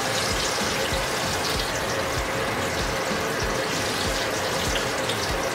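Hot oil sizzling steadily as chicken pieces deep-fry in a pot, with a regular low beat underneath.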